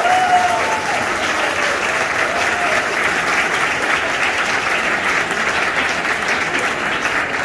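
Audience applauding steadily: a crowd's dense clapping, with a couple of short cheers in the first few seconds.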